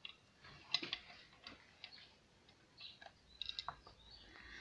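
Faint, scattered clicks and ticks from a Mazda MX-5 roof latch being worked by hand, its plastic housing and small metal parts knocking and snapping against each other.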